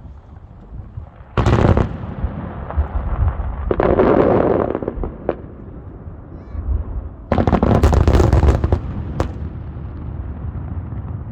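Aerial fireworks shells bursting. There is a sharp boom about a second and a half in, a longer rumbling burst around four seconds, and another sharp boom a little past seven seconds followed by crackling, with a low rumble between the bursts.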